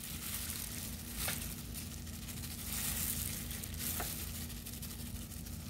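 Smoked paprika shaken from a container onto raw chicken in a foil pan: a steady light hiss of falling powder with plastic-glove rustle, and two light clicks, about a second in and again about four seconds in. A steady low hum runs underneath.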